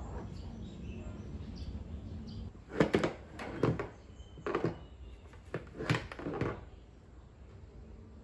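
A run of about seven sharp knocks and rattles of hard plastic, from a motorbike helmet and scooter body being handled, starting about three seconds in and stopping shortly before the end.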